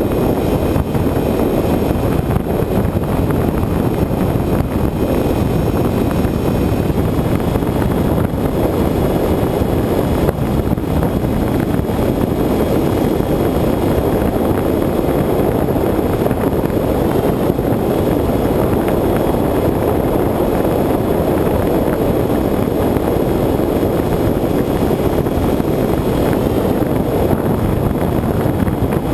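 Steady rush of airflow and the drone of the electric pusher motor and propeller, heard from the camera on board a Bixler RC plane in flight. A faint high whine drops away about seven seconds in.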